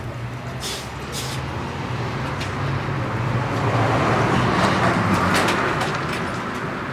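Motor vehicle passing in the street over a steady low engine hum: the sound swells to a peak about four to five seconds in, then fades.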